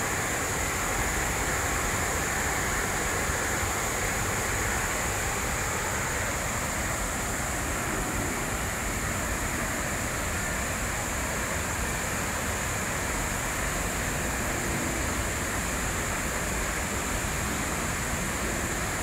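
Steady rush of water falling into the National September 11 Memorial's reflecting pools, an unbroken, even roar with no change over its length.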